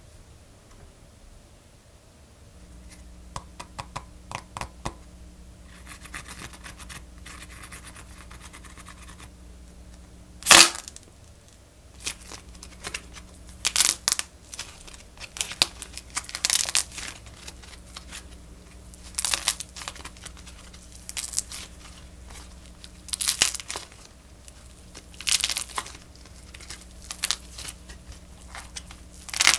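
Clay macaron squeezed and torn apart by hand, its dried clay skin crackling and crinkling in repeated short bursts, with one sharp loud crack about ten seconds in.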